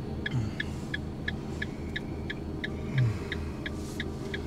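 A vehicle's turn-signal indicator ticking steadily, about three clicks a second, over the low steady hum of the engine running, heard from inside the cab. A brief low falling sound comes near the start and again, louder, about three seconds in.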